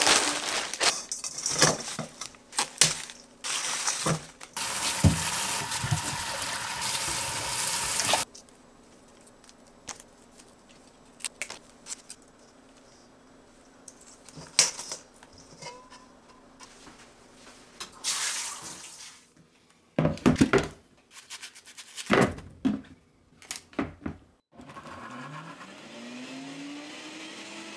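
Kitchen work sounds: a plastic bag crinkling and knocks, then a tap running for about four seconds, followed by scattered clatter of a steel colander and bowls. About 25 seconds in, a countertop blender motor starts and spins up with a rising whine as it grinds onion.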